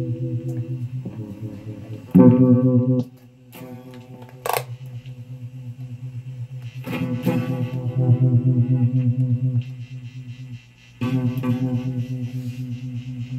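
Electric guitar played through a Fuzz Face fuzz pedal running on a drained battery: distorted chords struck three times and left to ring, with a brief sharp noise near the middle.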